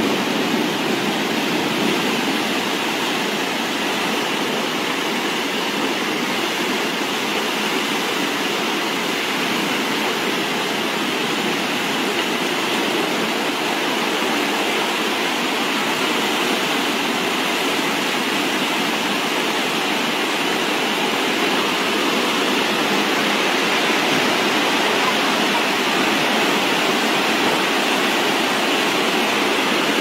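Muddy flash-flood water rushing down a street: a steady, loud rush of fast-flowing water.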